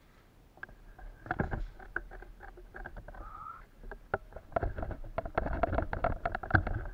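Rustling and irregular clicks and knocks of a player moving quickly through grass and brush with gear, starting about a second in and getting busier and louder near the end.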